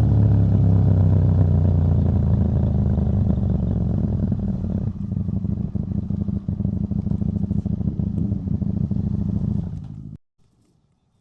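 KTM 790 Duke's parallel-twin engine, exhaust without its catalytic converter, running with a steady note; it eases a little about five seconds in and cuts off abruptly near the end.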